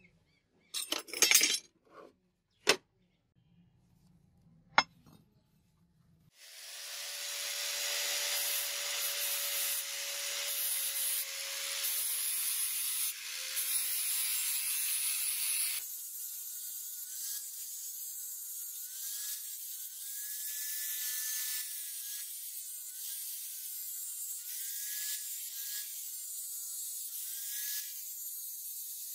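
A few sharp knocks in the first five seconds, then an angle grinder runs from about six seconds in, grinding the edge of a steel sword blade. About sixteen seconds in the sound changes to a higher whine that rises and falls as the wheel is worked along the edge.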